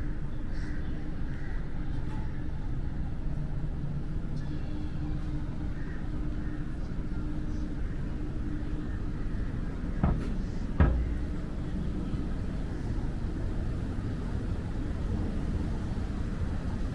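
Wind buffeting the microphone as a steady low rumble, with a faint steady hum through the first half. Two sharp knocks come close together about ten seconds in.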